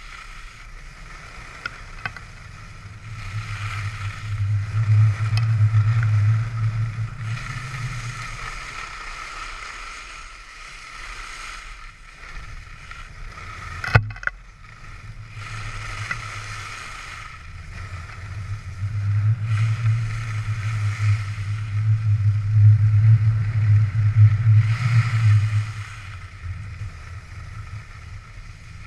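Skis sliding and carving over groomed snow, with wind rushing over the microphone in two long swells that rise and fade with speed. A single sharp click about halfway through.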